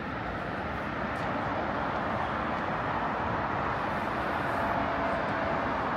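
Steady city street traffic noise from passing cars, a little louder from about a second in.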